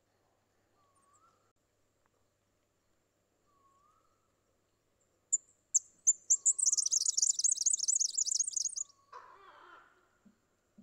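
Red-backed fairywren song: a few sharp high notes, then a rapid, high-pitched reeling trill lasting about three seconds, ending in a lower, rougher chatter. Before it, a faint short rising call repeats about every two seconds.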